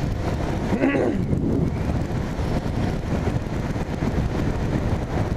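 Wind buffeting the microphone: a steady low rumble and hiss, with a short vocal sound from a man about a second in.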